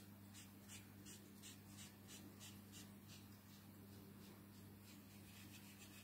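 Faint scratching of a Stampin' Blends alcohol marker tip stroked back and forth on card, about three strokes a second, over a steady low hum.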